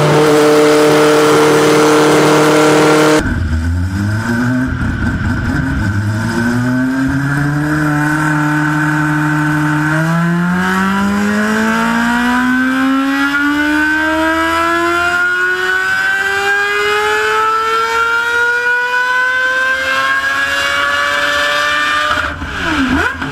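A Ferrari F40 LM's twin-turbo V8 is held at steady high revs on a chassis dyno. Then comes a Mazda 767B's four-rotor rotary engine under a dyno pull: it climbs in pitch in a few short steps, then rises in one long, smooth sweep of about twelve seconds before backing off near the end.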